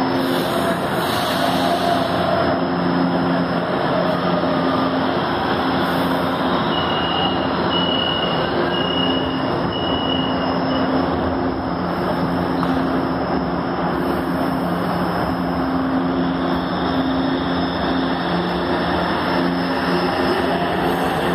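Metro train at the platform with its steady electric hum and running noise, four short high beeps in a row about a third of the way in signalling the doors closing, then the train moving off past the platform near the end.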